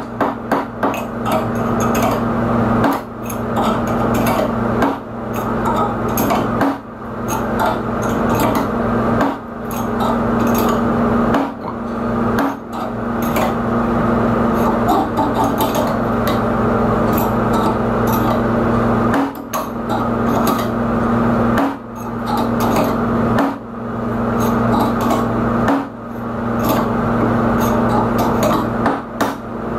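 Rapid clinking and clanking of metal hand tools, sped up in time lapse, as a C-clamp is cranked down on a socket to press a caster bearing into its housing, over a steady low hum. The sound drops out briefly every few seconds.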